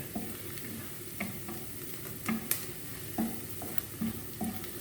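Chopped onion and garlic sizzling in hot oil in a pan as they are sautéed toward translucent, stirred with a utensil that knocks and scrapes against the pan every half second or so.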